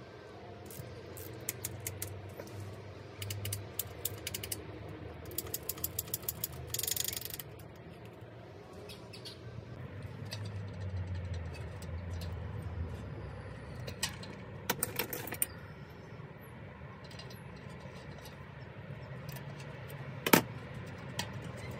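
Small metal clicks and clinks of hand tools working on a bicycle: a hex key at the handlebar stem bolts, then a cone spanner on the front hub's axle locknut. A run of rapid clicks comes partway through, one sharp knock near the end, and a low steady hum lies underneath.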